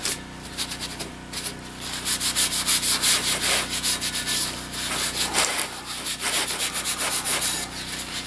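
Crumpled paper towel rubbing loose rust dust off the bare iron handle of a fire-cleaned cast iron skillet in quick back-and-forth strokes, which grow louder about two seconds in.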